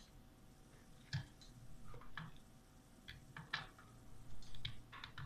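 Scattered light clicks and taps of plastic and wire as a thin wire is worked into the terminals of a slim plastic relay module held in the hands.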